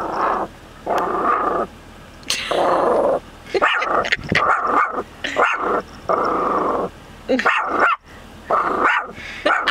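Small Maltese-Bichon dog barking and growling aggressively in a run of about eight rough, growly outbursts, each lasting up to a second with short pauses between.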